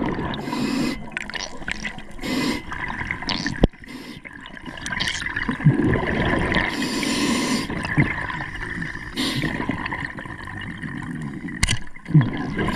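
Underwater sound picked up by a diver's camera: water rushing and bubbling, with several short bursts of hiss and two sharp clicks, one about a third of the way in and one near the end.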